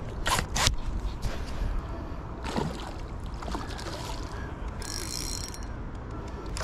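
Spinning reel being wound in against a hooked pike, its mechanism ticking, with splashing as the fish thrashes at the surface.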